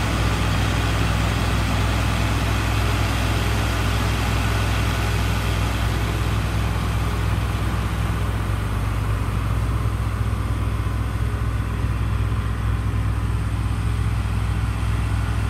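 A vehicle engine running steadily at idle: a deep, even hum that does not change.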